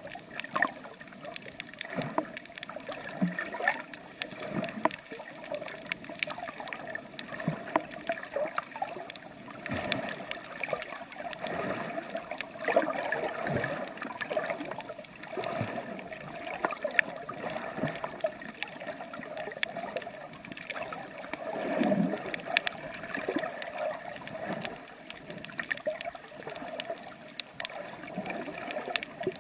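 Water sloshing and gurgling around a swimmer's camera, with irregular small knocks and splashes throughout.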